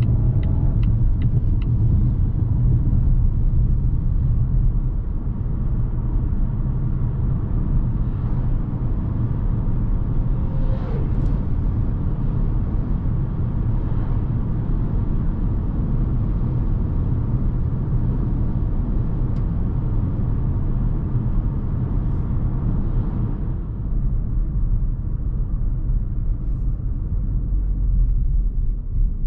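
Cabin noise of a 2020 Volvo V60 T5 Cross Country driving on the road: a steady low rumble of its 2.0-litre turbocharged four-cylinder engine and tyres, with road and wind hiss above it. A few light ticks come near the start, and the hiss fades about three-quarters of the way through.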